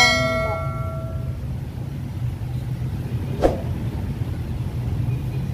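A vehicle engine running steadily at idle, a continuous low hum. At the start a click and a bright bell-like ding ring out and fade over about a second, the subscribe-button sound effect. A single sharp tap comes about three and a half seconds in.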